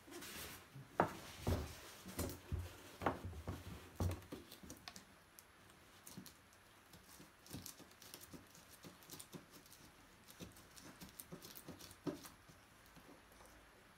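Tools and parts being handled: a run of knocks in the first five seconds, then lighter, quicker clicks and taps.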